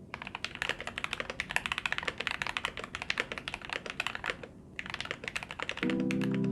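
Fast typing on a CIY Tester68 mechanical keyboard with Gateron Cap v2 milky yellow linear switches, lubed with Krytox 205g0 and dampened with shelf liner: a dense stream of key clicks with a short pause a little past the middle. Music with held chords comes in near the end.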